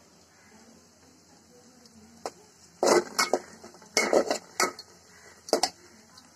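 Metal spoon stirring onions in an aluminium cooking pot: a few short clattering scrapes against the pot, starting about two seconds in.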